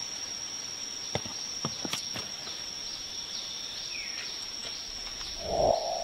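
Forest insects keep up a steady, high-pitched drone, with a few short clicks in the first two seconds and small bird chirps. A louder, lower call-like sound comes in near the end.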